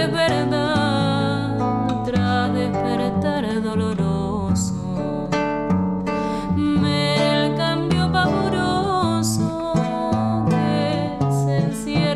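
A woman singing a slow song, accompanying herself on a nylon-string classical guitar.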